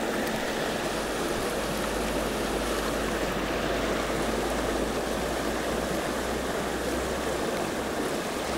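Water rushing steadily over a low weir, a constant white-water rush.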